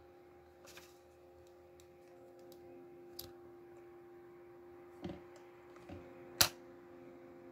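Small hard plastic clicks and knocks as the K'nex Cyber Processor controller and its plastic programmable key are handled, five in all, the loudest a sharp click about six and a half seconds in. A steady hum runs underneath.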